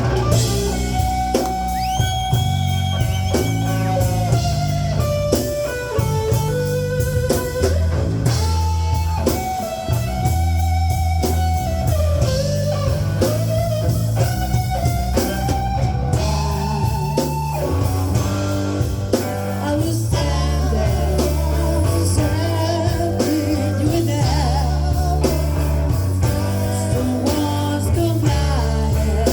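Live rock band playing an instrumental passage: a lead guitar line with bent, gliding notes over bass guitar and drum kit.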